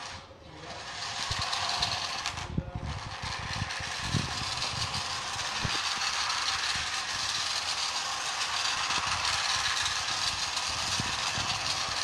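Small electric motor and plastic gearbox of a toy remote-control car whirring steadily as it drives on a hard floor. It briefly cuts out near the start and again about two and a half seconds in, then runs on without a break.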